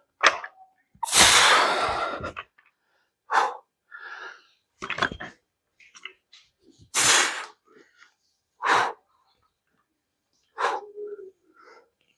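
A man's forceful exhalations while pressing heavy dumbbells overhead: a long, loud breath out about a second in, then five short, sharp breaths pushed out one every one and a half to two seconds, one with each rep.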